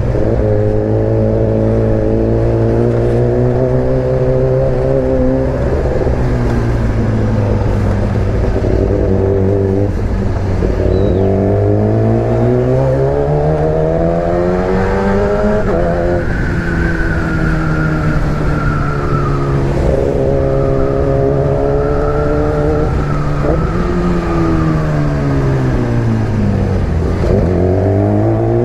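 Sport motorcycle engine under way, pulling through the gears. Its pitch climbs steadily and drops sharply at each upshift, about four times. Near the end it falls away as the bike slows, then rises again as it accelerates.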